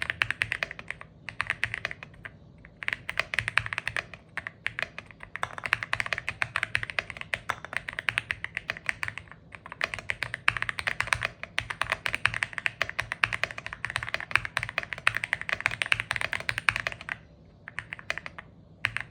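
Fast typing on an Epomaker Aula F81 gasket-mount mechanical keyboard with Ice Crystal switches and GDA profile keycaps, a rapid run of keystroke clacks broken by short pauses, the longest about two seconds near the end.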